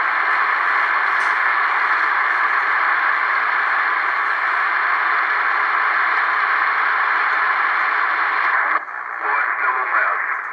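Cherokee CBS-1000 CB base station's speaker giving a steady band-limited hiss of receiver static. Just before nine seconds in, the hiss drops and a warbling incoming transmission breaks through.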